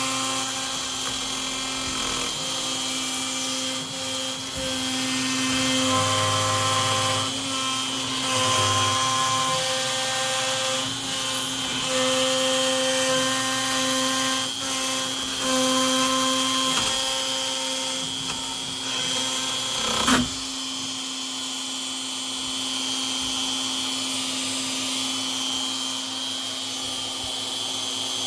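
MillRight CarveKing CNC router cutting a test piece in wood: the router spindle gives a steady whine, while the stepper motors' tones shift and change as the axes move. A sharp click comes about two-thirds of the way in, after which the motor tones drop out and the spindle runs on alone.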